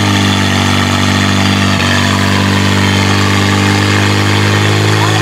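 Portable fire pump engine running flat out at a steady high speed while pumping water into the attack hoses.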